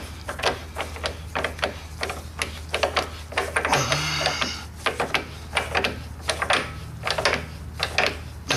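Irregular metal clicks and ticks from a rear main seal installer tool being turned by hand on a VW 1600 engine case, drawing the crankshaft seal in, over a steady low hum.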